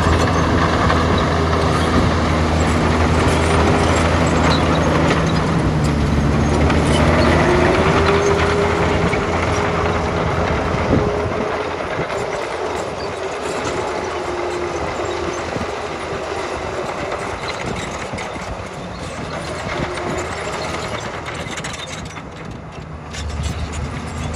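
Bulldozer's diesel engine working hard with clanking tracks. The engine note climbs and holds from about six to ten seconds in, then eases off and stays quieter for the rest.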